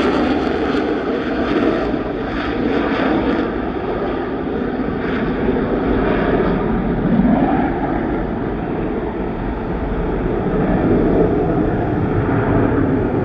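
Loud, steady aircraft engine noise from a fixed-wing aircraft, holding at about the same level throughout.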